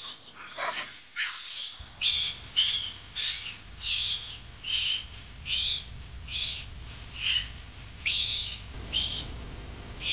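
Baby macaque crying in distress: a string of short, high-pitched squealing cries, one to two a second, pausing briefly near the end.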